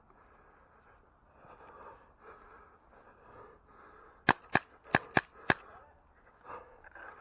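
Airsoft rifle firing five sharp single shots, unevenly spaced, in just over a second, about four seconds in.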